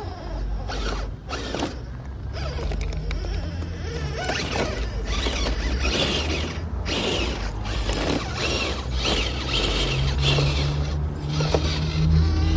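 Radio-controlled rock crawler truck working over rough ground: its gears and drivetrain click and creak, with irregular knocks over a steady low hum.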